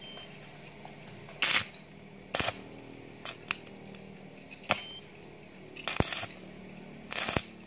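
Stick arc welding: the electrode striking and tack-welding a steel rod ring onto a square hollow tube in about seven short, sharp bursts. The longest burst comes about six seconds in.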